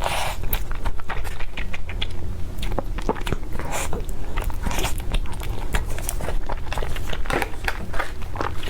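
Close-miked eating: a person biting and chewing food, with many small sharp clicks and crackles.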